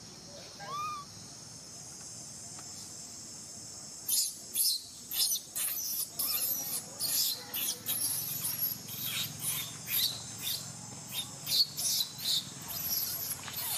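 Insects droning steadily at a high pitch, with a short rising call about a second in. From about four seconds in, a quick, irregular run of short, sharp high-pitched sounds sets in over the drone.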